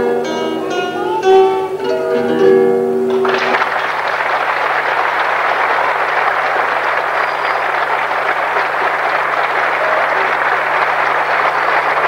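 Three acoustic guitars play the closing plucked notes of a folk piece, then the audience breaks into steady applause about three and a half seconds in.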